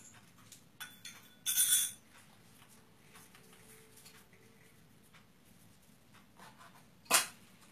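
A few light clinks of a spoon against a dish, with one louder ringing clink about a second and a half in, then quiet until a brief sharp knock near the end.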